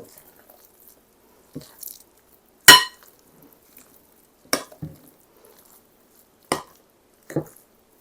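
A utensil knocking against a bowl about six times while chopped pecans are added and mixed in, with short quiet gaps between knocks. The loudest knock, about a third of the way in, rings briefly like a clink on glass or china.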